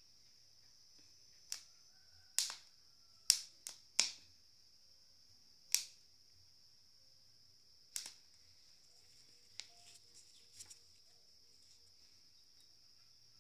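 Maize cobs roasting over a charcoal fire on a wire grill: sharp, irregular pops and cracks, about nine of them and bunched in the first half, over a steady high-pitched hiss.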